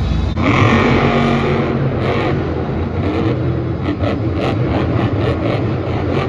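Monster truck's supercharged V8 engine revving on the dirt course, heard from the stands. From about three seconds in its note breaks into a quick run of short blips, about three a second.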